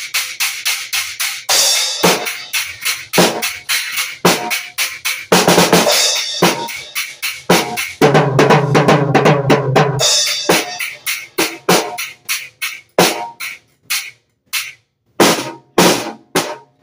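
Drum solo on a small acoustic drum kit: fast snare and tom strokes with cymbal crashes, densest about eight to ten seconds in, then sparser single hits with short pauses near the end.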